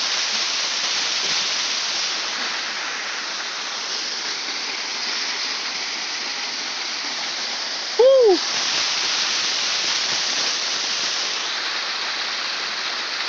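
Waterfall pouring over rock, a steady rush of falling water. About eight seconds in, one brief rising-and-falling call is the loudest thing.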